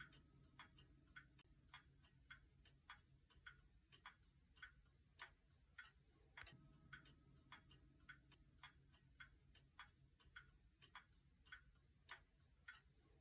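Old German Kienzle spring-driven pendulum wall clock ticking faintly, a steady, evenly spaced tick-tock from its escapement.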